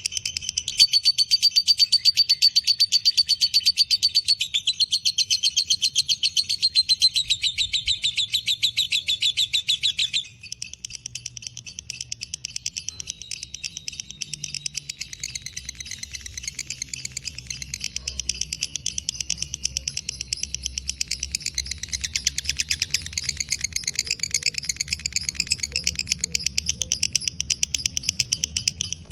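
Lovebird 'ngekek': a long, unbroken chattering trill of shrill notes, many per second. It drops in volume about ten seconds in and carries on.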